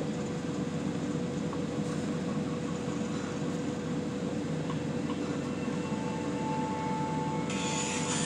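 Steady mechanical hum inside a truck cab, with a thin steady tone running through it; a brief rustle near the end.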